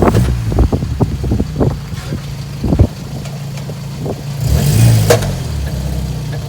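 Car engine running with a low, steady note and a short rev about four and a half seconds in, with scattered sharp clicks in the first few seconds.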